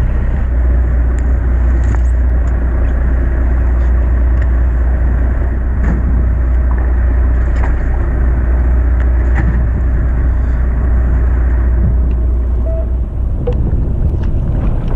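Fishing boat's engine running under way, a steady low drone with wind and water rush over it; the drone falls away about thirteen seconds in.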